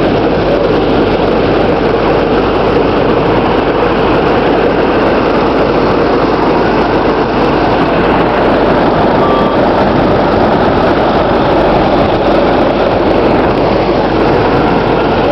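Model T Ford snowmobile under way, its four-cylinder engine running steadily with the noise of the drive and snow beneath.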